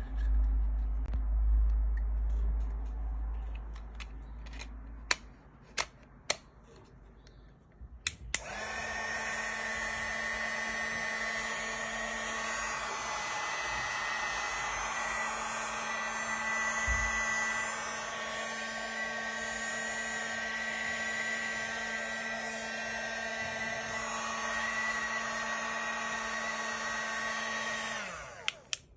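Small battery-powered lice vacuum comb: a few sharp clicks and low handling rumble, then the motor is switched on about eight seconds in and runs steadily with a high whine and airflow hiss for about twenty seconds before switching off near the end.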